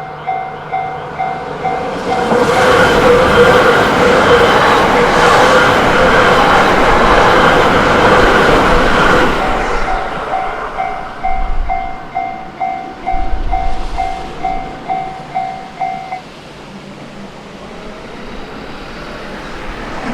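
Japanese railway level-crossing warning bell ringing in a steady ding-ding rhythm. About two seconds in, a train rushes loudly through the crossing for about eight seconds and drowns out the bell. The bell then rings on alone and stops about three-quarters of the way through.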